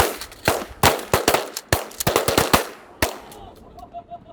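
A rapid volley of about a dozen shotgun blasts from several guns firing together, some shots landing only a fraction of a second apart, ending about three seconds in.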